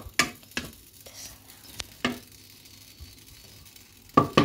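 Bacon frying with a faint sizzle in a pot while a utensil stirs it, giving several sharp knocks against the pot; the loudest pair of knocks comes near the end.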